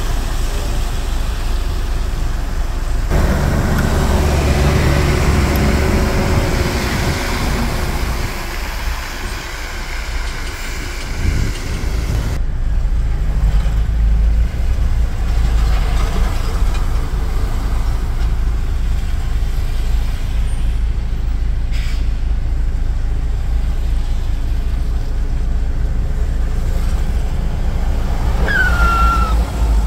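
Heavy diesel trucks driving past on a wet road, engines running loud and steady with traffic noise. A short, high, falling squeal near the end.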